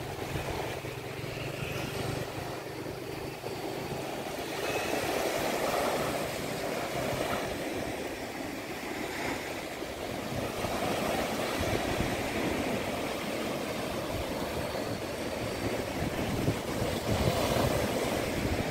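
Small waves breaking and washing up on a sandy beach, the surf swelling every five or six seconds, with wind rumbling on the microphone.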